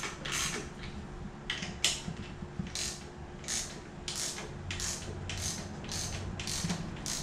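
Hand ratchet wrench being worked back and forth on a bolt of a Honda engine, in short clicking strokes at about two a second.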